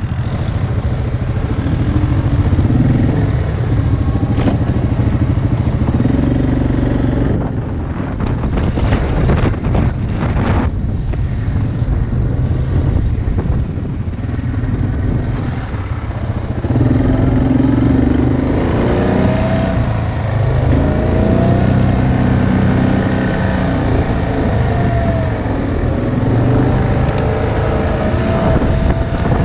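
ATV engine running under way, its revs going up and down, with several rising whines as it speeds up in the second half.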